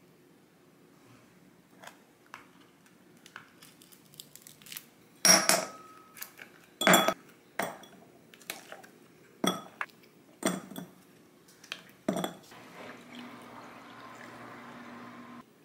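Ice cubes dropped into a glass, about five sharp, ringing clinks a second or two apart, with lighter ticks before them. Near the end, milk is poured steadily over the ice for about three seconds.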